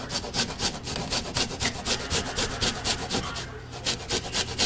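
Garlic clove being grated on a stainless-steel rasp grater, quick rasping strokes about four or five a second, with a short break about three and a half seconds in.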